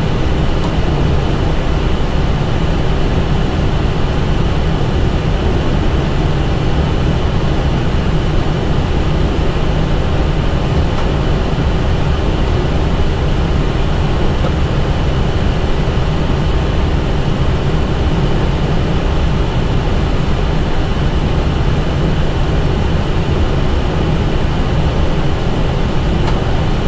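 Steady cockpit noise of an Airbus A320 taxiing at walking pace with both engines at idle: an even low rumble under a constant hum with a few thin steady high tones.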